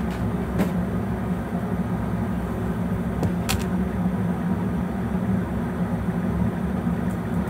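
Steady low mechanical hum, with a couple of light clicks about half a second and three and a half seconds in.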